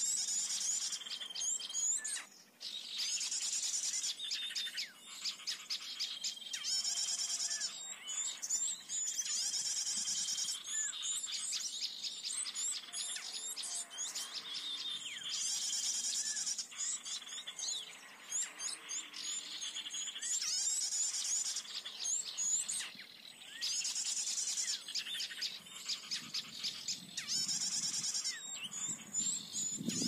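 Sikatan (flycatcher) song played as an MP3 bird lure: bursts of rapid high twittering, a new phrase every two to three seconds, with short thin whistled notes between them.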